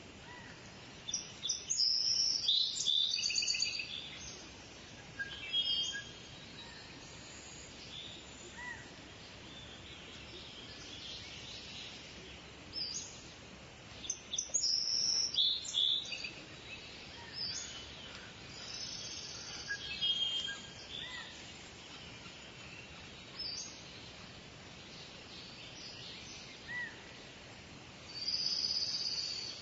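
Birds chirping and chattering in bursts of high calls, loudest about a couple of seconds in, around the middle and near the end, over a steady background hiss.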